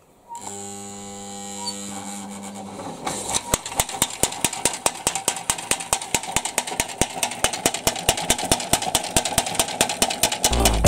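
Homemade reciprocating tool, a tile cutter's slide driven by an electric motor. The motor starts with a steady hum, and about three seconds in a fast, regular knocking sets in, about four to five knocks a second. This is the loose slide slapping back and forth as it runs.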